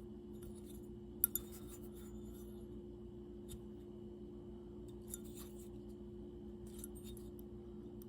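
A few faint, light metallic clicks and clinks from small metal gear being handled, two close together about a second in and softer ones later, over a steady low hum.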